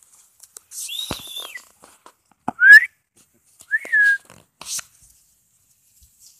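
A person whistling three short notes to call a dog: a high falling one, a louder rising one, then a falling one, with brief rustles of dry leaves underfoot in between.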